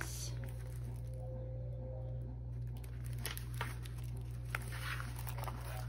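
A steady low hum with a few faint crinkles and ticks from the plastic film over a diamond painting canvas being handled.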